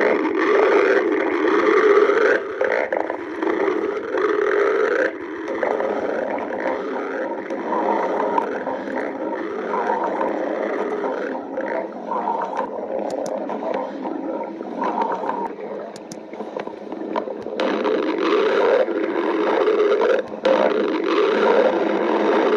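Stomach growling: a long, unbroken rumbling gurgle that wavers in pitch and loudness.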